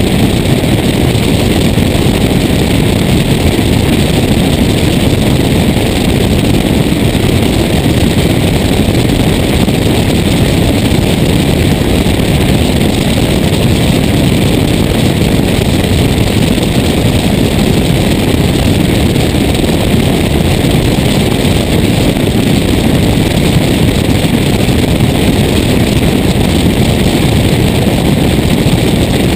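Steady drone of a Cessna 172's engine and propeller in cruise flight, heard on a camera mounted outside under the wing with air rushing over it.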